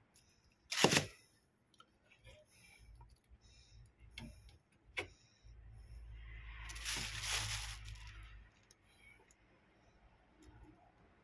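Hand work on washing-machine wiring with a crimping plier and push-on wire connectors: one sharp, loud click about a second in, a few lighter clicks, then a longer scraping rustle of handling for a couple of seconds past the middle.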